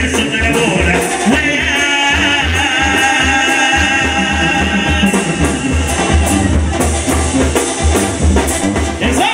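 Live Mexican banda brass band playing: a sousaphone bass line pulses on a steady beat under brass and drums.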